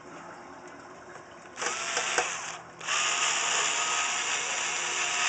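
Small electric screwdriver's motor whining in two runs, about a second and then about two and a half seconds, driving screws into a metal case.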